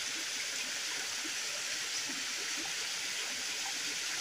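Steady rushing of flowing stream water, an even hiss without change.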